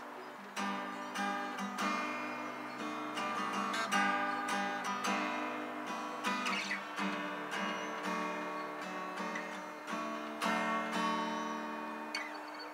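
Acoustic guitar being strummed, chord after chord, each ringing out and fading before the next strum.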